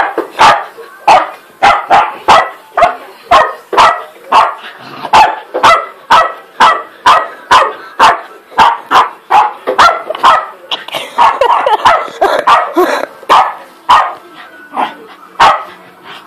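West Highland white terrier barking repeatedly and excitedly at a sweeping brush, about two sharp barks a second, the barks running together more densely a little past the middle.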